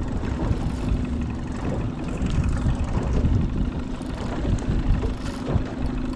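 Outboard motor of a small aluminium fishing boat idling with a steady hum, under uneven low rumbling.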